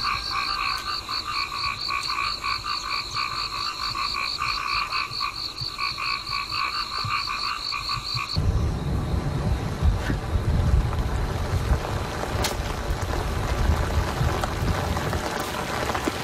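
A dense chorus of frogs calling in rapid, pulsing trills. About eight seconds in, it cuts off abruptly and gives way to heavy rain, a steady noise with a low rumble.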